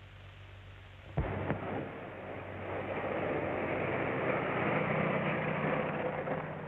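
A vehicle running: after a fairly quiet first second and a short click, a steady rushing rumble builds to a peak a few seconds in and then eases a little.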